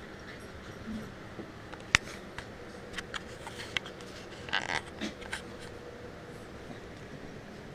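Kittens scuffling at play on carpet and a heap of clothes: scattered light clicks and rustles, the sharpest single click about two seconds in and a short flurry of scuffling about halfway through, over a steady low hiss.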